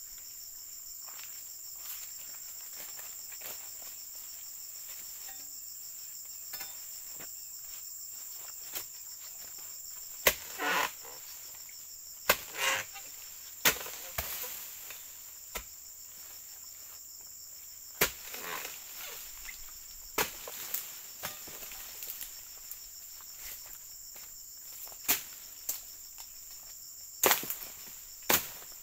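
Sharp knocks of a long-handled harvesting blade striking an oil palm's frond bases and bunch stalks, about eight at irregular intervals, a couple followed by a short rustle. A steady high insect chorus runs underneath.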